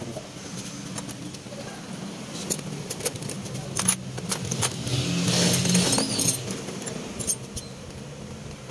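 Small metal carburetor parts and tools clinking and rattling in a plastic basin as they are handled, in sharp scattered clicks. A vehicle engine runs nearby, loudest about five to six seconds in.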